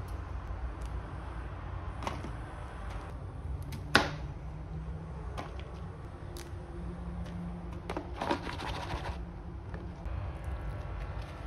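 Chef's knife cutting broccoli on a plastic cutting board: scattered taps of the blade on the board, one sharp knock about four seconds in, and a brief rustle about eight seconds in.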